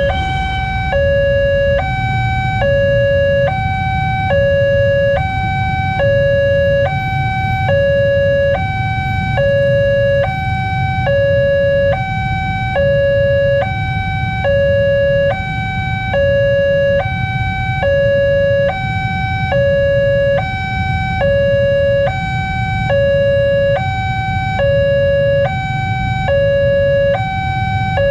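Electronic two-tone warning alarm of a railway level crossing, steadily alternating between a lower and a higher tone about every half second, over a low rumble of waiting traffic. The noise of a passing electric commuter train fades out right at the start.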